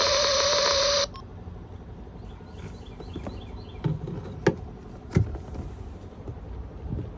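Loud radio static hiss with a steady tone from the boat's radio, cutting off with a click about a second in. After it come a quiet background and a few sharp knocks.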